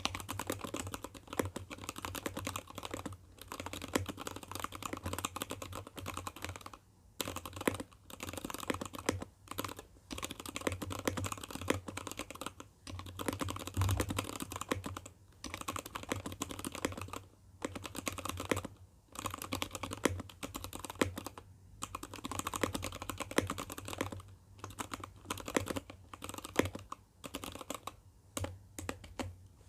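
Typing test on an acrylic-cased ABKO ADK05 mechanical keyboard with Kailh Box Red linear switches and lubricated stabilizers: fast runs of keystrokes with short pauses between them.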